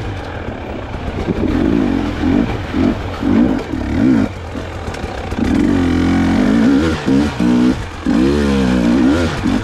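Dirt bike engine revving up and down again and again as the throttle is opened and closed in short bursts, with a couple of longer pulls after the middle.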